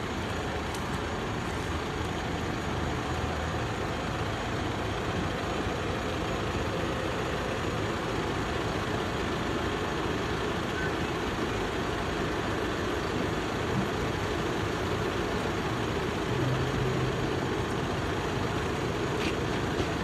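School bus engine running steadily, close by, while the bus stands at the stop.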